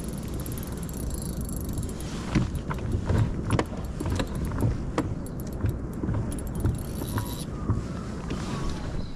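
Low wind rumble on the microphone, with a run of irregular sharp clicks and knocks from about two seconds in until near the end: rod, reel and kayak gear handling as a fish is played on a bent rod beside the kayak.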